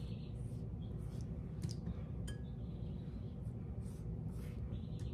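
Soft, scratchy strokes of a pastry brush dabbing egg wash onto the edges of raw puff pastry, with a few faint clicks, over a steady low room hum.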